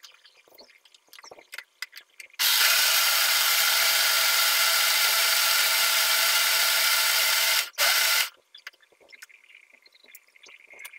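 Electric countertop blender running steadily for about five seconds, blending a jarful of phalsa sharbat, then stopping and giving one short pulse just under a second later. Light clicks and knocks come before and after as the jar is handled on the base.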